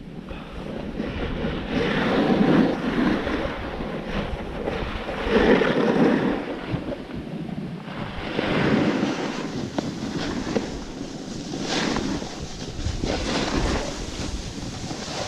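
Snowboard edge scraping across packed piste snow, swelling with each turn every two to three seconds, under wind buffeting the microphone.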